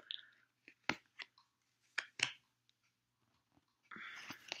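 Tarot cards being handled: a few short, sharp taps and clicks as a card is laid down and the next is drawn, then a brief rustle of cards near the end.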